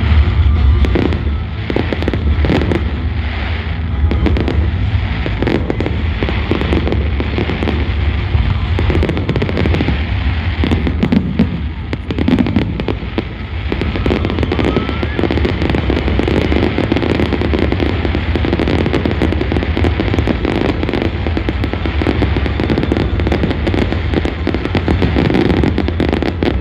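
Fireworks display: rapid, overlapping bangs and crackle of bursting fireworks, several a second, over a steady low rumble.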